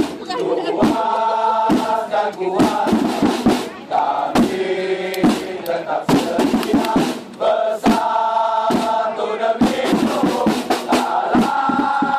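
Crowd of football supporters chanting a song in unison, with frequent sharp beats through it.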